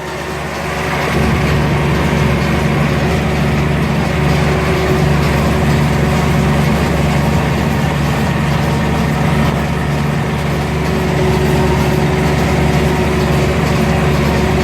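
Belarus 82.1 tractor's four-cylinder diesel engine running steadily, getting louder about a second in and then holding an even note.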